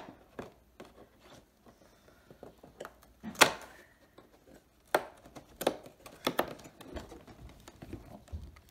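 Cardboard Advent calendar box being handled, its doors pressed and pulled open: several sharp taps and clicks with light rustling, the loudest about three and a half seconds in.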